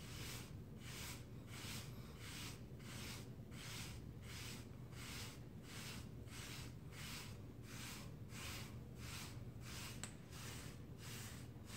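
A wooden-handled bristle hair brush swishing through short waved hair in quick, even strokes, about three a second, faint and steady throughout.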